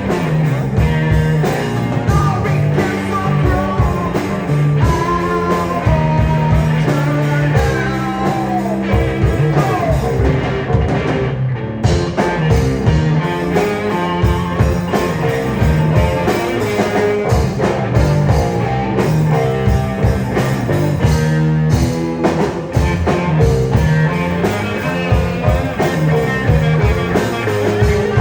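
Rock band playing a song, with electric guitar over a steady beat.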